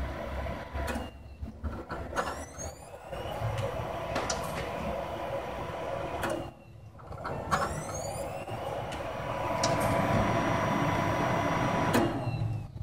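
Desktop PC's fans and hard drive running with a steady whir that cuts out twice, each time spinning back up with a rising whine: the computer shutting itself down and powering back on by itself.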